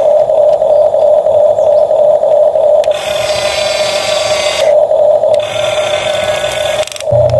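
A loud, steady buzz that holds one pitch throughout, with a hiss joining in about three seconds in and again around five and a half seconds in, and a brief dropout near the end.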